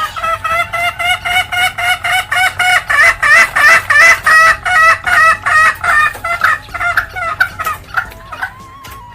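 Junglefowl hen cackling (ngekek): a long run of quick, repeated pitched notes, about four a second, loudest in the middle and dying away near the end.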